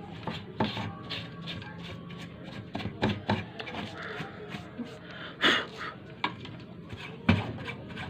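A brush scrubbing and hands handling a CRT TV's circuit board and wiring: irregular scrapes, rustles and light clicks, with a couple of sharper knocks about five and a half and seven seconds in, over a steady low hum.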